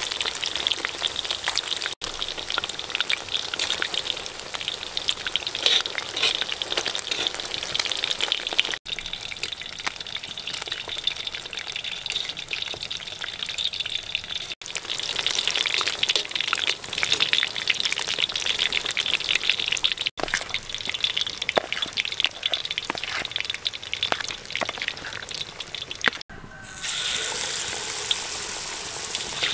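Battered pork ribs deep-frying in a wok of hot oil: a dense, steady crackle and sizzle. Near the end it turns into a smoother, even sizzle as fresh battered pieces go into the oil.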